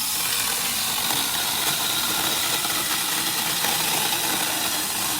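Small cordless electric mini chainsaw running at full speed, a steady hissing whir of motor and chain. It switches on and off abruptly with the trigger.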